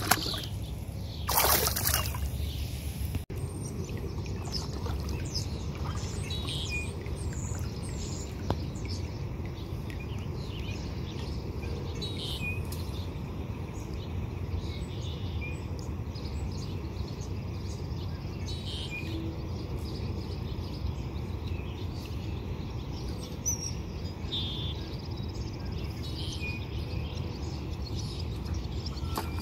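Songbirds chirping and singing, with short calls scattered all through, over a steady low rumble. One short splash comes at about a second and a half in, as a small bass is let go into the water beside the kayak.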